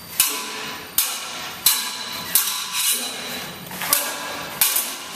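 A series of heavy, sharp percussive hits with a ringing tail, roughly every three-quarters of a second, about seven in all with one beat skipped near the middle, over faint sustained tones.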